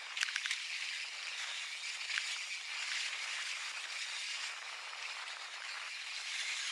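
Mountain bike riding fast down a dry dirt singletrack: a steady hiss of tyres rolling over dirt, with sharp clicks and rattles from the bike as it crosses roots, a cluster of them just after the start and another about two seconds in.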